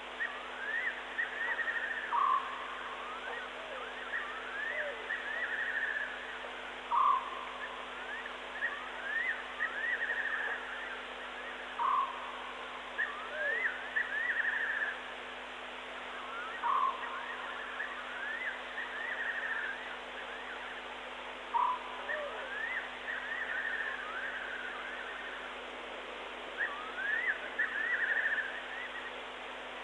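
Night animal calls: a short, louder call repeated about every five seconds, with runs of quick rising and falling chirps between them, over a steady hiss.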